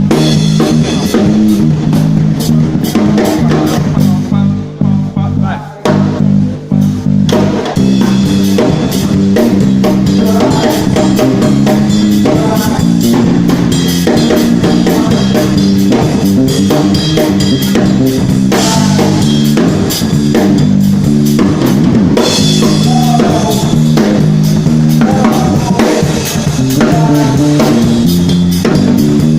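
Live band playing during a sound check: a drum kit keeps a steady beat with kick, snare and rim hits over a run of bass notes. The band thins out briefly about five seconds in, then comes back in.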